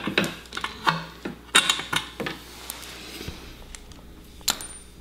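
Socket wrench clicking and metal parts clinking as bolts are taken off a paramotor's exhaust connector: a cluster of sharp clicks in the first two seconds, then quieter, with one more click near the end.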